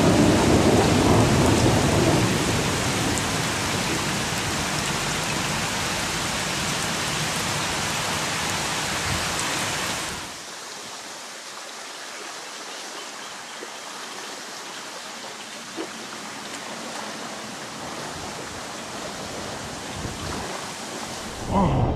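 Heavy rain falling steadily in a thunderstorm, with thunder rumbling at the start and fading over the first couple of seconds. About ten seconds in it cuts to a quieter steady wash.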